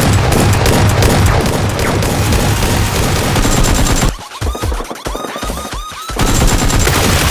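Rapid automatic gunfire sound effects over background music. The fire is dense for about four seconds, then breaks into separate shots a fraction of a second apart.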